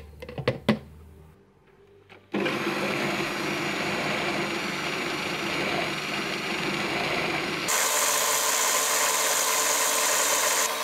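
A few clicks and knocks, then about two seconds in an electric countertop jug blender starts up and runs steadily, blending soaked oat flakes and raspberries into a shake. About five seconds after starting, its sound shifts higher and thinner as the mix turns smooth.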